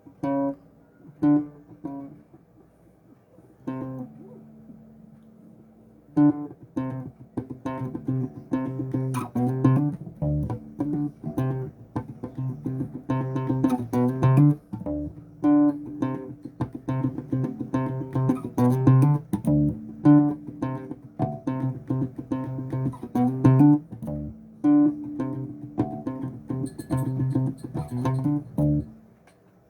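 Bass guitar played solo: a couple of single plucked notes and a held note, then, from about six seconds in, a busy run of quick plucked notes that stops shortly before the end.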